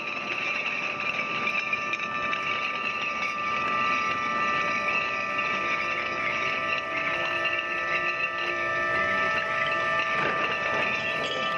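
Heavy drag chains clattering along a shipyard slipway as the launched ship pulls them. Several steady high tones are held over the clatter.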